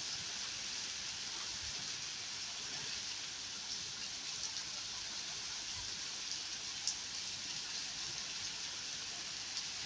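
Heavy rain falling steadily, an even hiss with a few sharper ticks of single drops.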